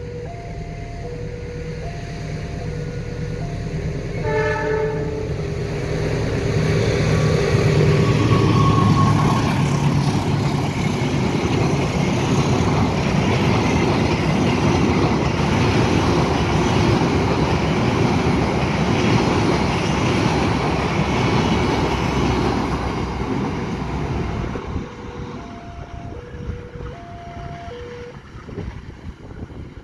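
Level-crossing warning alarm chiming in two alternating tones. About four seconds in, a locomotive horn sounds briefly. The locomotive's engine then rumbles past and the passenger coaches roll by on the rails for about fifteen seconds, and the alternating crossing chime is heard again near the end.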